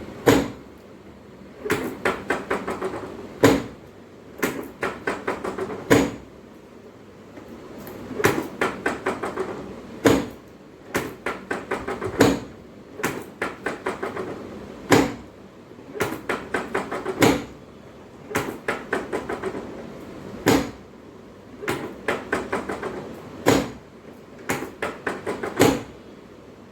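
Repeated percussive knocking and tapping, with runs of quick lighter taps broken every two to three seconds by one harder knock, in a small room.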